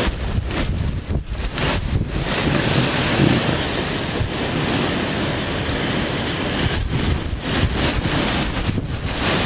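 Thunderstorm wind and rain blowing against the microphone in gusts. A stronger, steadier gust builds about two seconds in and eases back to choppy buffeting near the end.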